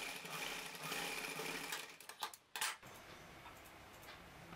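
Sewing machine stitching a seam through cotton cloth, running steadily and stopping about two seconds in.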